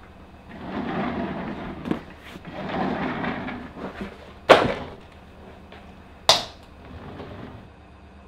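Rummaging and handling noises in two stretches, then two sharp knocks about two seconds apart, the first the loudest.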